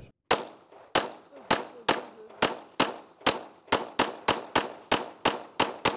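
Semi-automatic pistol fired in a rapid string of about sixteen shots, each a sharp crack with a short ringing decay. The shots start at about one every half second or more and quicken to about four a second near the end.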